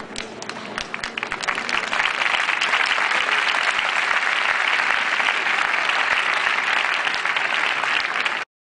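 Applause: scattered claps that swell within about two seconds into dense, steady clapping, cut off abruptly near the end.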